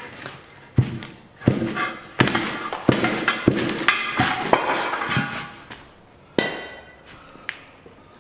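Tire iron clanking and prying against a metal truck wheel rim while a heavy truck tire is worked off it: about nine sharp metallic knocks, some ringing briefly.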